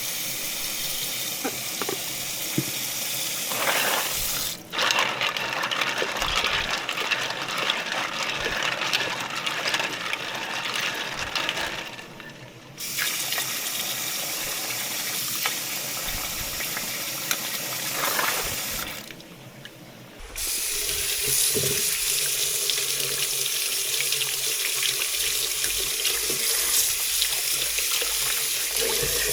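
Water running from a kitchen tap into a sink, breaking off briefly a few times. Near the end a steadier, brighter hiss takes over.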